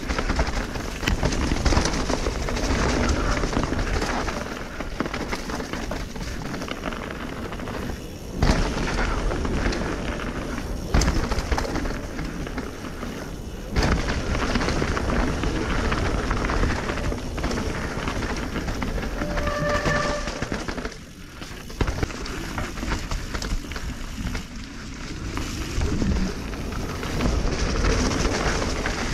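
Canyon Spectral AL 5.0 mountain bike riding down a wet, leaf-covered dirt trail: tyres rolling over mud and leaves, the bike rattling, and wind rushing on the helmet camera's microphone, with sharper knocks over bumps. A brief high tone sounds about two-thirds of the way through.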